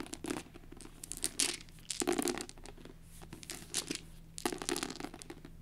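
Eight plastic six-sided dice handled by hand on a paperback book cover: about five irregular bursts of dice clicking against each other and scraping across the cover as they are gathered up and rolled.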